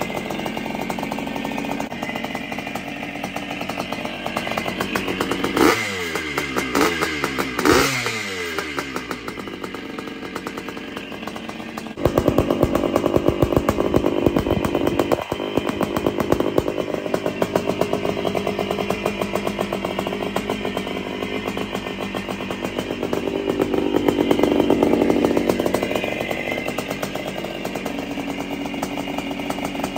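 1973 Honda CR250M Elsinore's air-cooled two-stroke single idling, with two quick throttle blips about six and eight seconds in. From about twelve seconds in it is heard louder, right at the exhaust silencer, rising a little again near twenty-five seconds.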